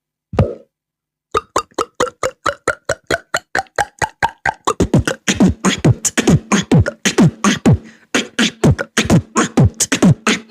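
Beatboxed water-drop sounds made with the mouth: a fast run of popping drops, about five a second, many with a quickly falling pitch, woven with beatbox kick beats. The run starts a little over a second in after one short pop.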